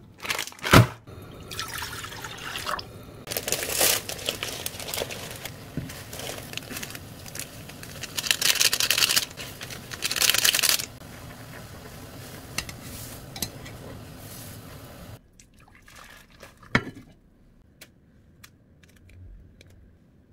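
Instant ramyeon being cooked in a pot on a gas stove: plastic seasoning packets tearing and crinkling in loud bursts over steady boiling, with a sharp knock about half a second in. About 15 seconds in the cooking noise stops and only a few faint clicks and knocks remain.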